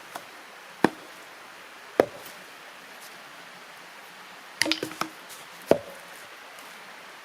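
Wood being chopped: a handful of sharp single chops a second or more apart, with a quick run of smaller knocks around the middle.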